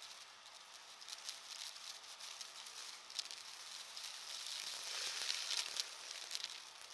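Upright vacuum cleaner sucking dry, crunchy debris off a carpet mat: a dense crackle and rattle of particles over the airflow hiss, building to its loudest about five to six seconds in.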